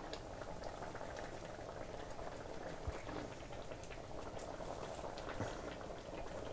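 Thick tomato-and-chickpea curry simmering in a wok: a steady, faint bubbling with many small pops.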